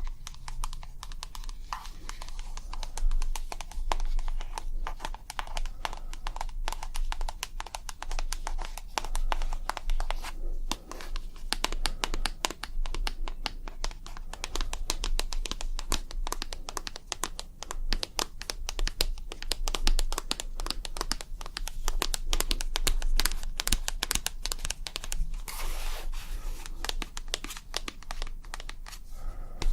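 ASMR tapping: a dense, continuous run of quick light taps on objects, many a second, with no pause.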